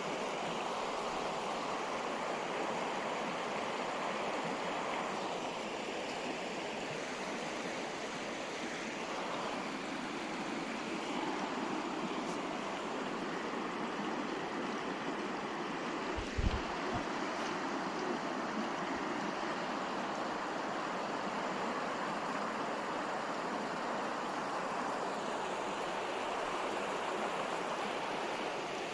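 River water flowing in a steady, even rush. A brief low thump about halfway through.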